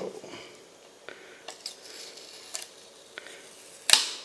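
Knife prying and peeling a sticker off a Nanostation's housing: faint scrapes and small clicks, then one sharp, louder click near the end.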